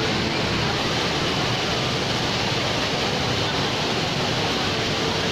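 Steady rushing roar of the Rain Vortex, Jewel Changi Airport's indoor waterfall, pouring down, with faint crowd voices underneath.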